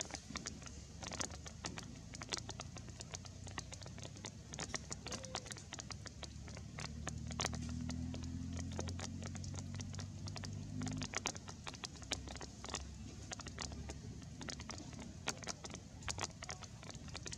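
Irregular patter of light clicks and taps, with a low droning hum rising in for a few seconds in the middle.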